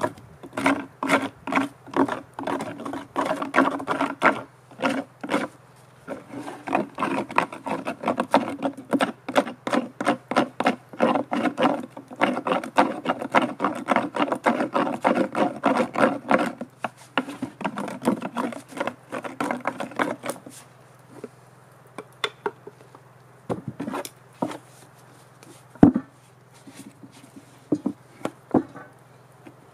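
Fast back-and-forth strokes of a hand tool rubbing on a hollow piece of wood, a few strokes a second with a pitched ring from the wood. They stop about 20 seconds in, and a few separate knocks of wood being handled follow.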